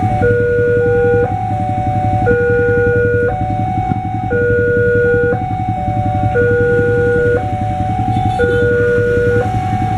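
Railway level-crossing warning alarm from a pole-mounted horn loudspeaker: an electronic two-tone signal switching between a low and a higher tone about once a second, sounding while the barriers are down for an approaching train. Idling motorcycle engines rumble underneath.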